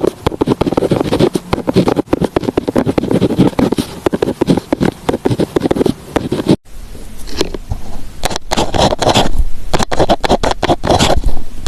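Pen writing on paper in quick scratching strokes. About two-thirds through, the sound breaks off and starts again with sharper, brighter strokes.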